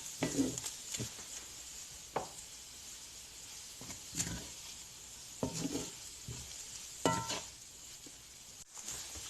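Fried rice sizzling in a pan with a steady hiss while a utensil stirs it, scraping and now and then knocking against the pan.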